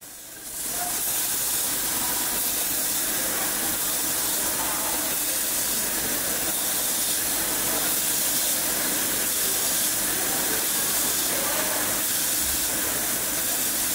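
Steady hiss of an automatic laser welding machine at work. It drops out for about half a second at the very start, then returns.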